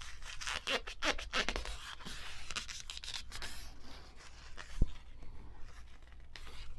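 Stiff metal parts of a Singer 223 sewing machine being worked by hand to free them up: irregular scraping and rubbing with small clicks, and one sharp click near the end.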